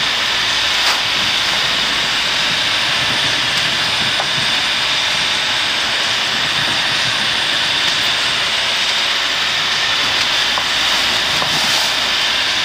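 Steady, loud rush of strong gusting wind and water streaming past a heeled sailing yacht, heard from inside the cockpit's clear enclosure, with a couple of faint knocks.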